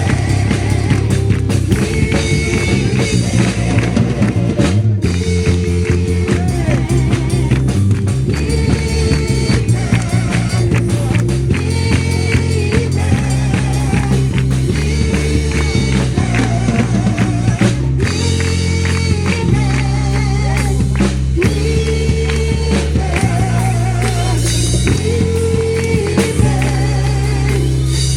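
Loud band music with singing: a Christian worship song with a steady rhythm and wavering sung notes over changing chords.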